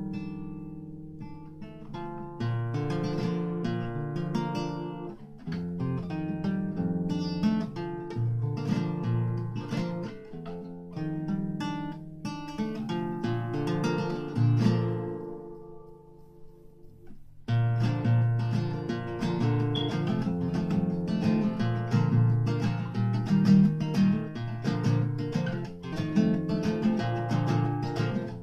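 Solo acoustic guitar playing a Hawaiian-style jam, plucked and strummed. About two-thirds of the way through the notes ring out and fade almost to nothing, then the playing comes back in louder.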